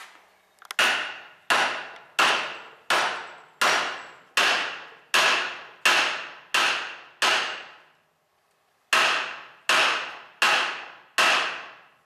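Steel hammer pounding the rusted pin of an Allis-Chalmers wheel eccentric held in a vise, driving it through its cast eccentric body to free the retaining spring. Ten ringing metal-on-metal blows come about 1.4 a second, each ringing briefly before it fades; after a short pause, four more follow.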